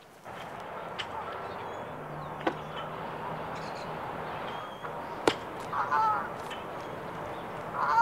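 Open-air ambience with a goose honking twice, about six seconds in and again at the very end, with a few sharp knocks earlier on.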